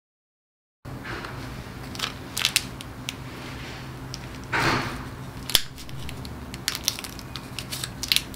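Small paper pouch holding a syringe cap being torn open and handled, starting about a second in: crinkly rustling with sharp crackles and clicks and one longer tearing swish about halfway.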